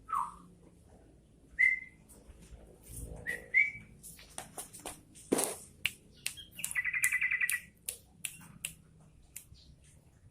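Caged bulbul giving a few short, rising whistled notes and, about seven seconds in, a rapid chattering trill of about a second, among scattered sharp clicks.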